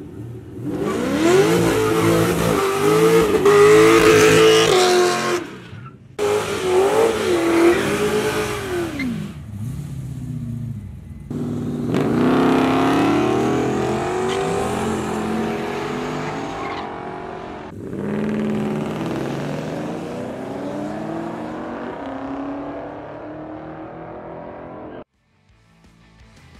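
Drag cars accelerating hard down the strip, engines revving and climbing in pitch, in four separate passes that each cut off abruptly.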